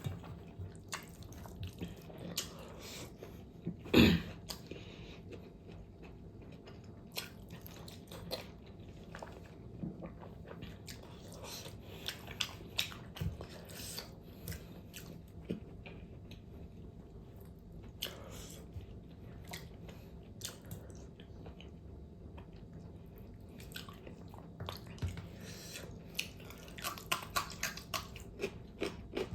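Close-miked mouth sounds of someone eating fatty pork: wet biting and chewing with irregular smacks and clicks. One much louder smack comes about four seconds in.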